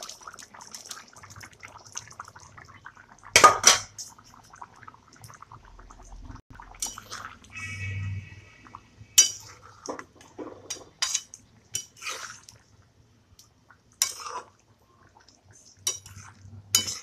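A spatula knocking and scraping against a pan as paneer cubes and boiled potato pieces are stirred into a thick yogurt gravy, with a wet squelch of the sauce. Sharp clinks come a dozen or so times at uneven intervals, the loudest about three and a half seconds in.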